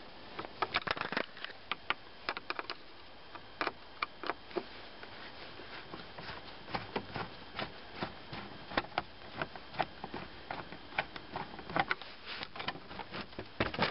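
Screwdriver turning screws out of a plastic dashboard trim panel: a string of light, irregular clicks and ticks of metal on screw heads and plastic.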